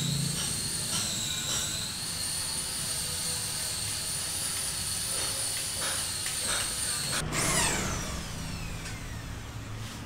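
A small handheld electric power tool running with a steady high-pitched whine, with a few sharp knocks on wood, then switched off about seven seconds in, its whine falling away as the motor spins down.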